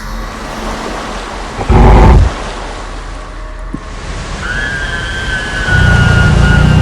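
Spooky sound-effect soundscape of a steady rushing noise like wind, with a short loud low rumble about two seconds in. From about four and a half seconds a long high tone slides slightly downward, and a loud low rumble comes in near the end.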